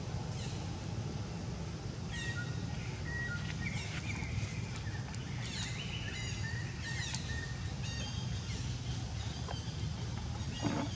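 Wild birds chirping and whistling in short high notes, some held and some sliding downward, over a steady low rumble of outdoor background noise, with a short squeak near the end.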